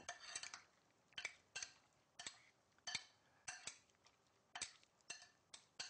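Spoon clinking and scraping against a glass mixing bowl while stirring diced tomatoes and olive oil: a string of faint, irregular clicks, about two or three a second.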